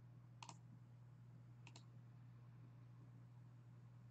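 Two faint clicks of a computer mouse, each a quick press-and-release pair, about half a second and just under two seconds in, over a low steady hum.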